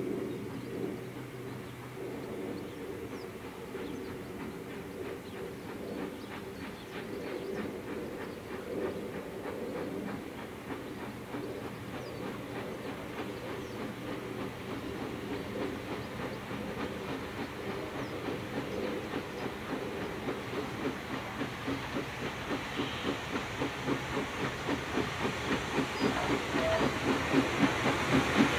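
Furness Railway No. 20, an 1863 Sharp, Stewart 0-4-0 steam locomotive, working toward the listener. Its exhaust beats are steady and even and grow louder as it approaches.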